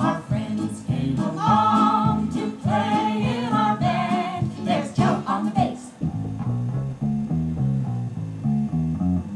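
Song with singing and guitar played back from a cassette on a repaired Technics RS-M234X deck, heard through a hi-fi loudspeaker. The singing drops out about six seconds in, leaving the instruments.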